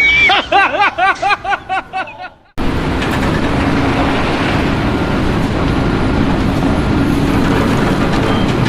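A quick run of repeated pitched chirps fading out, then, after a sudden cut, a vehicle engine running steadily.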